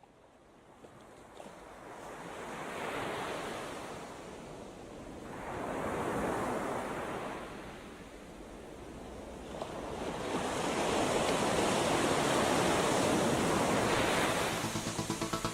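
Sea waves surging and breaking in swells that rise and fall, growing louder over the stretch. Near the end a boat engine starts up with an even, rhythmic putter.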